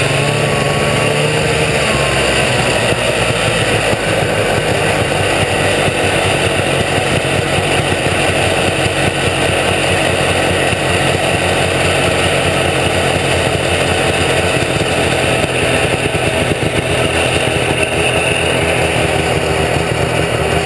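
1972 Ski-Doo T'NT 775 snowmobile's 775 cc two-stroke engine running steadily while the sled travels along the trail.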